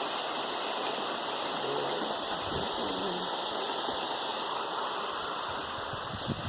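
Steady rush of flowing water, like a stream or falls running over rocks.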